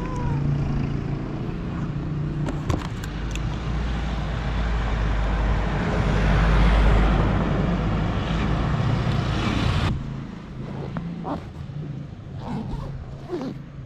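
Road traffic: a steady low engine hum, then a vehicle passing close by, loudest about six or seven seconds in. The sound drops off suddenly near ten seconds, leaving a few light clicks and rustles.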